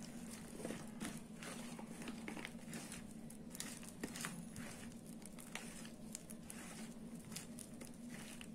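A hand mixing thick, wet urad dal and rice flour batter in a plastic bowl: irregular soft squelches and slaps, over a steady low hum.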